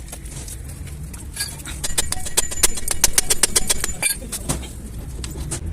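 Rapid run of sharp metallic clicks, about eight a second for a couple of seconds in the middle, from hand-tool work on a car's rear axle, over a steady low hum.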